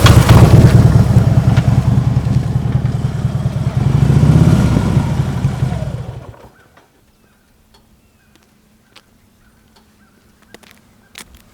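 Harley-Davidson V-twin with Vance & Hines Monster Oval slip-on mufflers running loudly, revving up once about four seconds in, then shut off about six seconds in.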